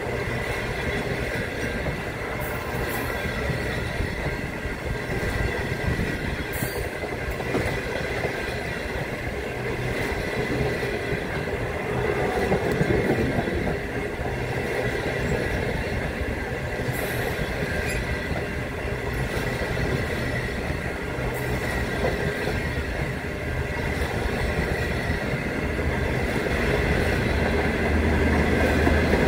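Long passenger train of stainless-steel carriages rolling past close by: steady wheel-on-rail rumble and clatter, with a faint steady high-pitched ring over it, growing louder near the end.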